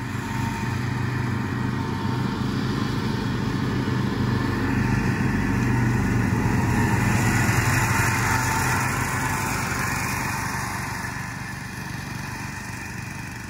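An ATV engine and the towed Swisher pull-behind mower's Briggs & Stratton 10.5 hp single-cylinder engine running together while mowing tall grass. The sound grows louder toward the middle, then slowly fades.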